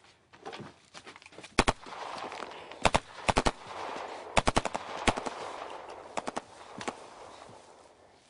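Gunfire in short rapid bursts of two to four shots, repeating several times over a few seconds and stopping a little before the end.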